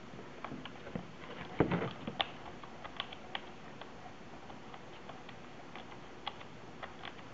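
Small clicks and scrapes of a Contax G lens being seated in a Contax G to Micro Four Thirds adapter and locked by rotating its bayonet, with a louder handling knock about one and a half seconds in.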